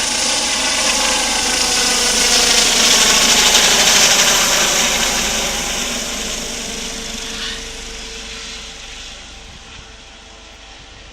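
Helicopter flying past, growing louder to a peak about four seconds in and then fading steadily away.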